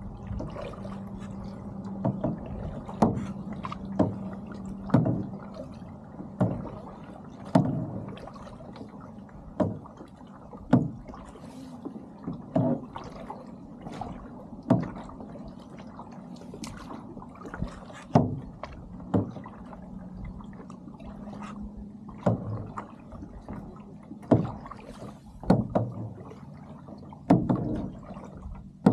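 Kayak paddle strokes: a sharp splash or knock of the paddle about every one to two seconds, over a faint steady hum.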